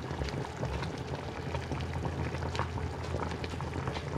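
Pot of rolled cabbage cooking in dashi broth, bubbling steadily with small scattered pops, over a low steady hum.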